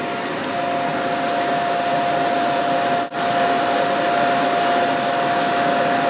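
Volta canister vacuum cleaner running, a loud steady rushing noise with a high whine held on one pitch; it cuts out for an instant about halfway. The owner calls it the loudest vacuum cleaner in the world.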